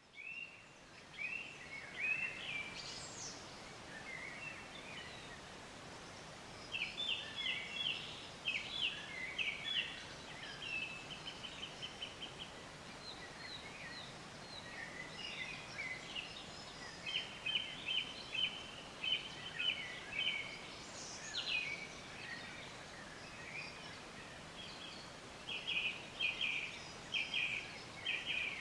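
Songbirds singing: repeated runs of short high notes and quick trills over a steady background hiss.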